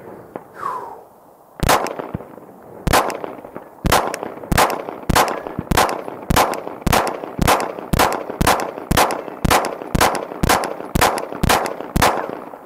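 ZRO Delta FKS-9 9mm Glock-clone pistol firing a magazine in steady slow fire: about eighteen shots starting about a second and a half in, the first few a second apart, then roughly two a second until near the end.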